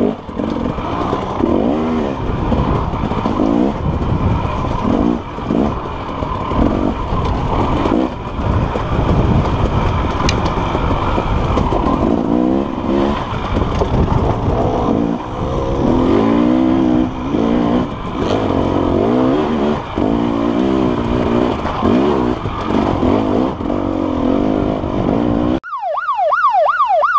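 KTM dirt bike engine revving up and down as the rider rolls on and off the throttle and shifts, with wind rumbling on the microphone. Near the end it cuts off abruptly and a warbling, siren-like electronic tone rises and falls about three times a second.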